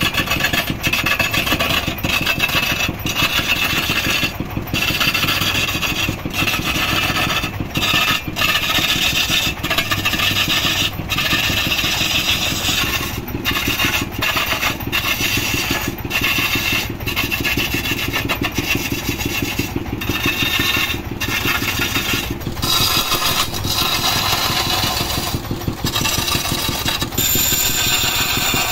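Manual wood lathe running while a hand-held turning chisel cuts into a spinning wooden vase blank: a steady scraping and shaving of wood over the running machine, breaking off briefly again and again.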